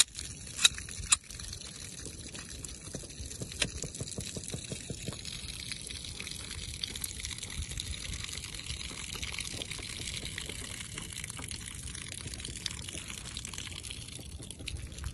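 Water trickling and pouring out of bullet holes in shot plastic water jugs, with a few sharp clicks in the first second.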